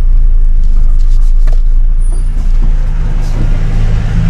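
Cabin sound of a Datsun redi-GO automatic creeping forward from a standstill: a steady low rumble of its small petrol engine and the road, with an engine hum growing stronger near the end.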